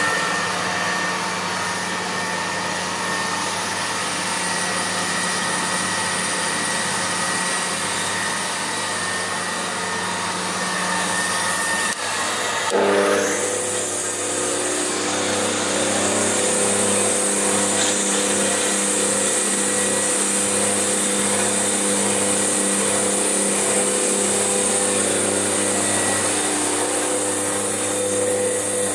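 Spindle moulder on a GIBEN combination woodworking machine running steadily after start-up, its motor and spindle making a constant hum. About twelve seconds in the sound breaks off briefly. It comes back with a different, stronger set of tones as the spindle is switched to its other speed.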